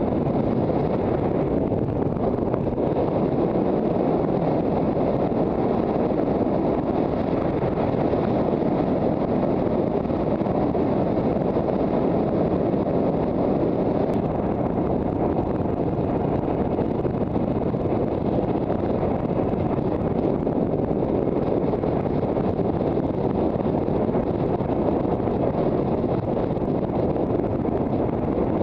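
Loud, steady wind noise buffeting a helmet-mounted action camera's microphone while riding a motorcycle at road speed.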